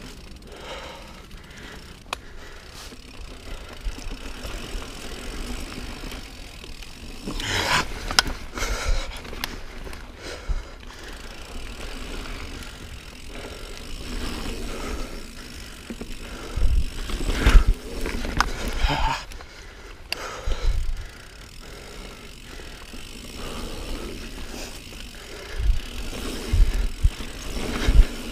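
Niner Jet 9 RDO mountain bike riding dirt singletrack: the tyres roll over the trail while the bike rattles and knocks over bumps. The knocks come in clusters, loudest about two-thirds through and again near the end.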